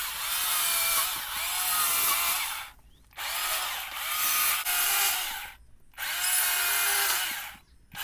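Battery-powered Stihl chainsaw cutting into a wooden log in three runs of about two and a half seconds each, the saw going fully quiet between them. The cuts are angled into the bottom of the log to round it off.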